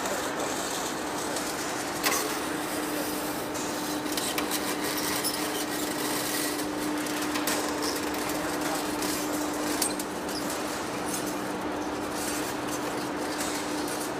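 Large lathe running, a steady hum with a constant mid-pitched tone under a rough scraping noise, with one sharp knock about two seconds in.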